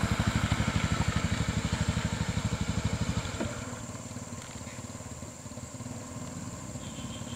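A vehicle engine running at low revs with an even throb, loud for the first three seconds or so and then fading to a fainter run.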